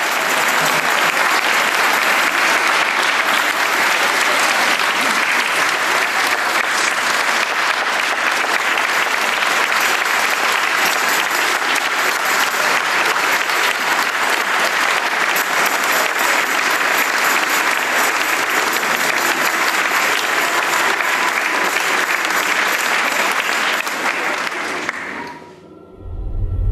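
Sustained applause from a large audience clapping, fading out about a second before the end, when a low rumbling sound begins.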